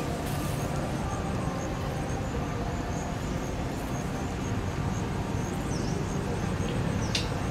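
Steady low outdoor background rumble, with faint high chirps and one sharp click just before the end.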